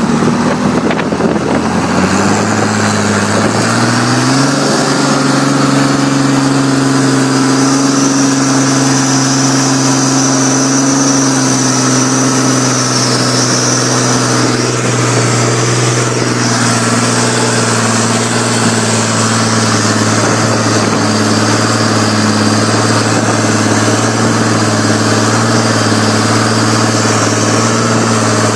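Fiat tractor's diesel engine, heard close up from on board, revving up over the first few seconds and then running steadily as the tractor drives along.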